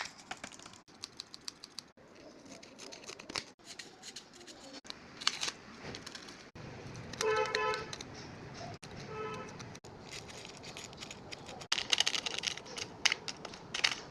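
Plastic bag being handled, crinkling and crackling in many short sharp clicks and snips, busiest near the end. Two short pitched tones sound about halfway through.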